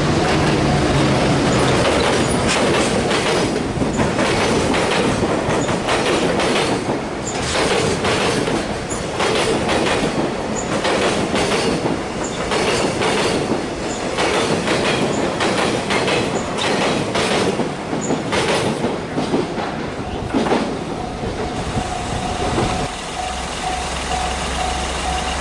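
A train passing over a level crossing, its wheels clacking unevenly over the rail joints. Near the end the train noise drops away and the crossing's warning bell rings in a steady repeating pattern.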